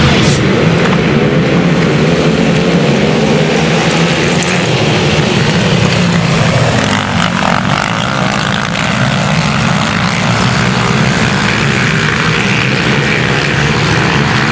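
A pack of racing quads (ATVs) accelerating off the start line together, many engines revving at once with wavering pitch.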